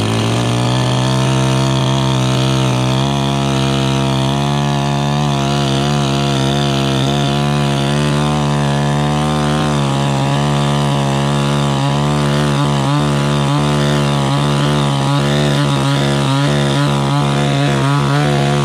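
iBell two-stroke petrol chainsaw held at full throttle, its chain cutting through a dry, dead tree stump. The engine note is steady and high, and from about halfway on it wavers as the bar bites deeper into the wood.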